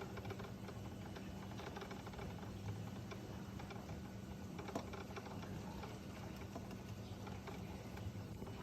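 DIY magnetic stirrer running in a kalkwasser reactor with a steady low hum, with irregular light clicks and ticks over it and one sharper click about five seconds in.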